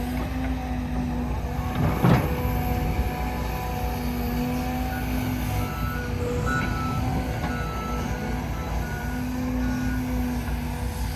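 Heavy diesel machinery running steadily, with a sharp knock about two seconds in.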